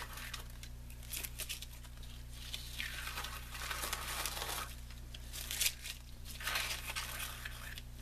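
Blue masking tape being peeled off watercolour paper in several pulls, the loose strips crinkling as they are gathered up.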